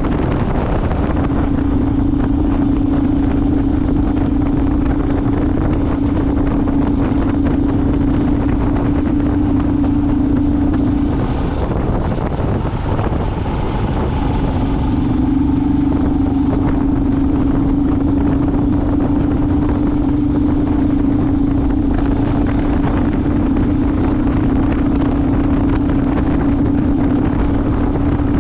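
Vehicle engine running steadily under way, with heavy wind noise on the microphone. The engine hum fades for a few seconds about halfway through, then comes back.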